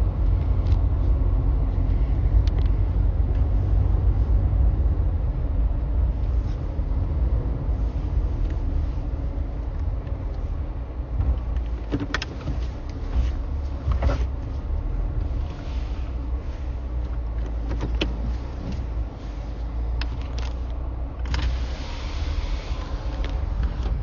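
A car driving, giving a steady low rumble of engine and road noise. A few light clicks come through, and a hiss swells near the end.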